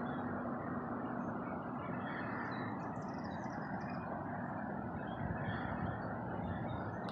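Steady rumble of road traffic, with a few faint high chirps about three seconds in.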